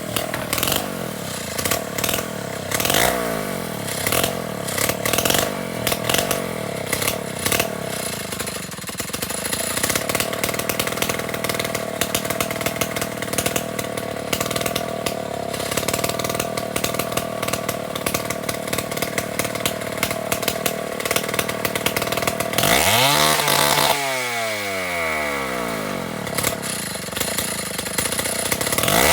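Chainsaw running at a steady high speed with a crackling edge. About 23 seconds in it revs up, then drops back toward idle, and it revs up again at the very end.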